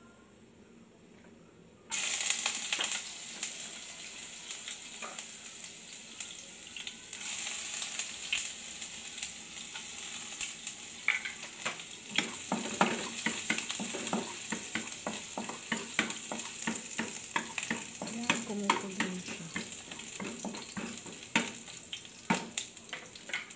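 Chopped garlic sizzling in a little hot oil in a non-stick frying pan, the hiss starting suddenly about two seconds in. From about halfway on, a wooden spatula stirring it knocks against the pan in quick, irregular clicks.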